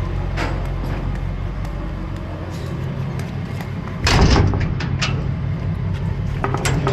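A vehicle engine idling steadily, with one loud door bang about four seconds in and a few light clicks near the end.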